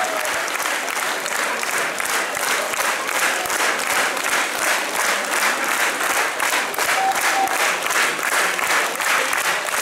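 Large theatre audience applauding, the clapping falling into a steady unison rhythm of about three claps a second.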